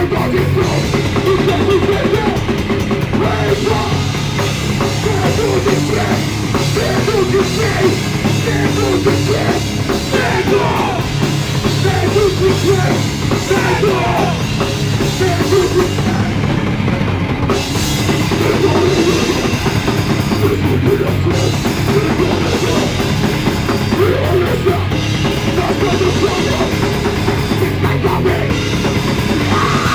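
A punk rock band playing live at full volume, with a pounding drum kit under heavy amplified instruments, captured on a phone's microphone.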